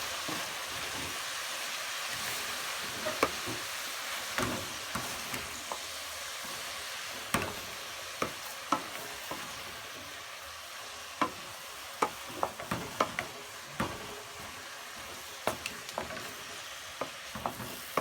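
Carrots and chopped dodo greens sizzling in hot oil in a pan while being stirred, a steady frying hiss with irregular knocks of the stirring utensil against the pan.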